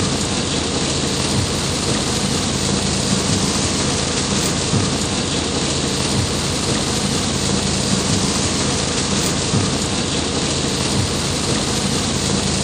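Heavy rain pouring steadily on a car's roof and windshield, heard from inside the car as a dense, even hiss.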